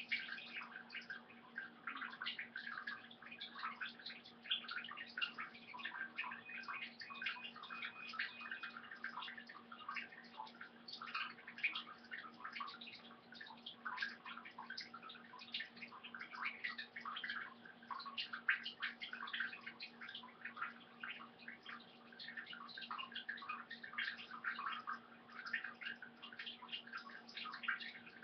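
A kitten peeing into the water of a toilet bowl: a continuous trickling splash that starts suddenly.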